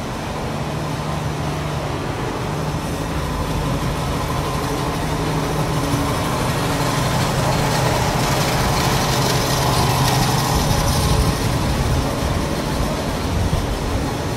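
A motor running steadily with a low hum, over a background of street noise; it grows louder about halfway through and eases off near the end.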